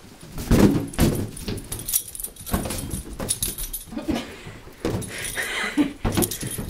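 A small dog playing with rubber party balloons on carpet: irregular bumps and rubs as it noses them about, with its collar tags jingling.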